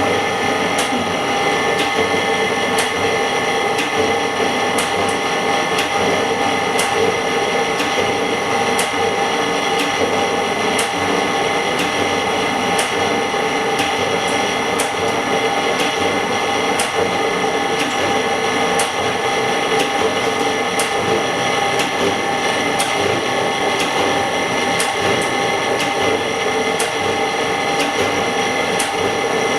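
Semi-automatic LCD separator machine running while a steel cutting wire is worked through to part cracked front glass from a phone's LCD: a steady mechanical hum with several held tones and faint ticks every second or so.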